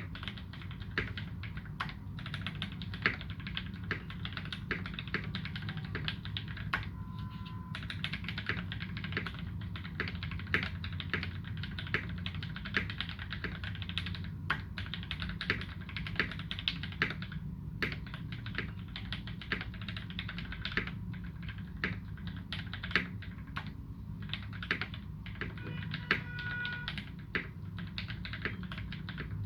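Continuous typing on a UTD360C custom mechanical keyboard with modded Gateron Ink Black v2 linear switches, tuned Cherry screw-in stabilizers and GMK Dolch keycaps. The keystrokes come as a fast, steady stream of clacks over a low hum.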